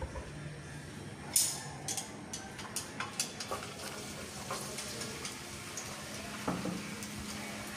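Hot cooking oil crackling and sizzling in a pan as chopped shallots and garlic go in to fry, with a string of sharp pops and spits, the loudest about a second and a half in.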